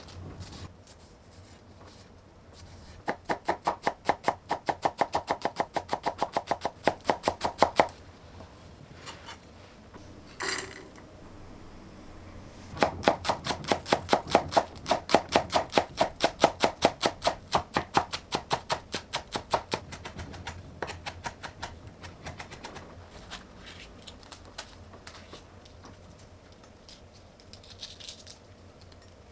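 Chef's knife chopping green onions on a wooden cutting board, quick even strokes about five a second, in two long runs with a pause between.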